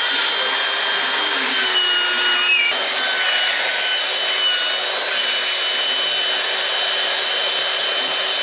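Small electric air pump running steadily as it inflates a vinyl ring: a constant whir with a steady hum and a thin high whine over it.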